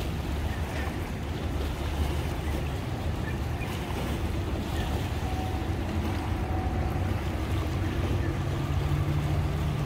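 Steady low engine rumble at idle, with wind noise on the microphone; a steady low hum comes in about eight seconds in.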